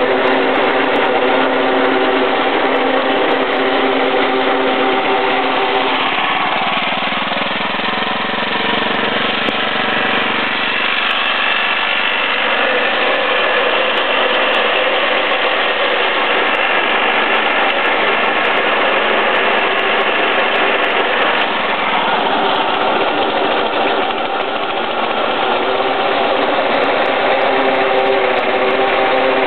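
Small engine running steadily at constant speed, its note wavering briefly about a quarter of the way in.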